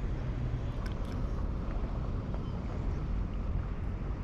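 Steady low rumble of wind buffeting the camera microphone, with a couple of faint ticks about a second in.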